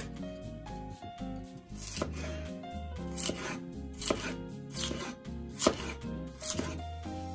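Kitchen knife slicing through lotus root on a wooden cutting board: a series of crisp cuts, each ending in a tap of the blade on the board, about one or two a second. Soft background music plays underneath.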